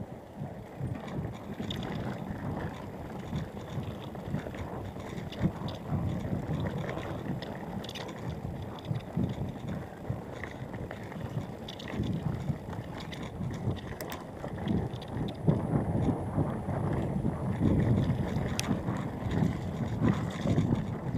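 Mountain bike rolling over a rough dirt and stone track: a steady tyre rumble with scattered clicks and rattles, and wind buffeting the microphone. It gets somewhat louder in the second half.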